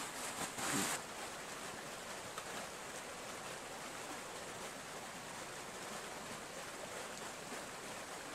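Shallow stream rushing over rocks, a steady flowing hiss, with one brief louder burst of noise just under a second in.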